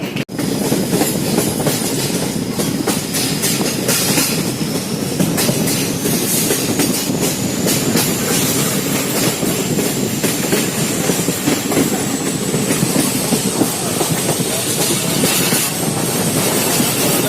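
Amaravati Express passenger train running on the rails, a steady rumble with the wheels clicking over rail joints. A thin, high wheel squeal rises slowly in pitch across most of the stretch.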